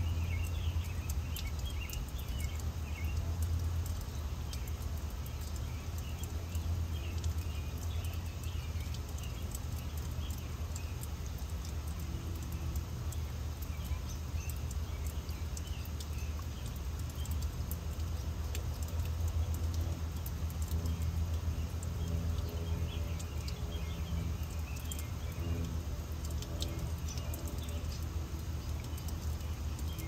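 Garden fountain water splashing steadily under a low wind rumble on the microphone, with small birds chirping now and then, most often at the start and again about three quarters of the way through.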